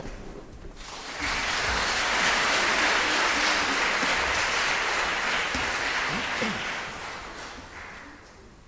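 Audience applauding. The clapping swells about a second in, holds steady, and dies away near the end.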